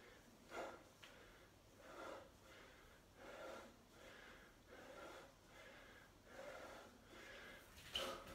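A man breathing hard from exertion during resistance-band Romanian deadlifts: faint, even breaths, about one every second and a half, with a stronger exhale near the end.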